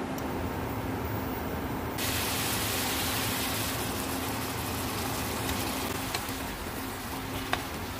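Stir-fry pan of broccoli frying quietly under a steady hum. About two seconds in, a sudden loud sizzling hiss starts as water is added to the hot pan, easing off over the next couple of seconds. Two small clicks come near the end.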